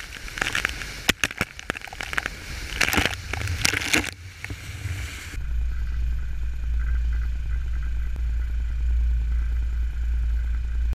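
Water splashing and spraying over the camera housing in a boat's wake, a rough rushing noise with sharp cracks of droplets hitting the lens. About five seconds in it cuts to a steady low engine hum.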